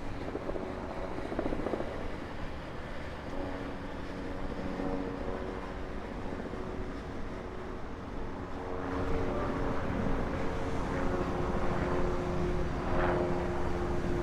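Steady engine drone holding several low tones, growing louder from about nine seconds in, over outdoor background noise.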